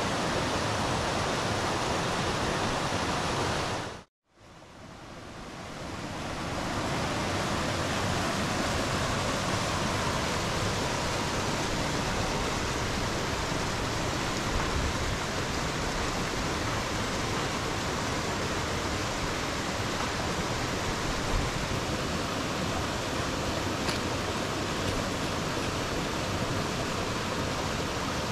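Steady rushing noise that cuts out abruptly about four seconds in and fades back up over the next two seconds.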